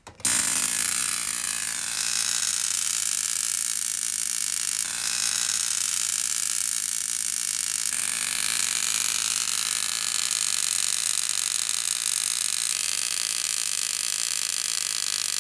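Homemade 40-watt spark gap Tesla coil firing: a steady buzzing crackle from the spark gap and arcs. It shifts in level a few times and starts and stops abruptly.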